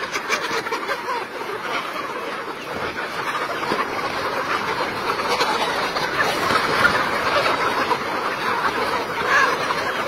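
A large flock of domestic chickens clucking together: a dense, steady chatter of many overlapping clucks.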